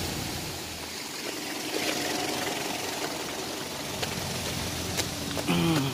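River water rushing steadily over a rocky bed, with a truck's engine running faintly as it fords the river. In the second half there are a few sharp clicks, and a short voice comes in near the end.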